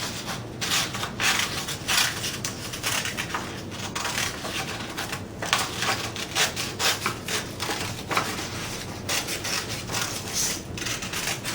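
Scratchy rubbing strokes on construction paper, irregular and several a second, from working the paper by hand with a drawing tool or cutter.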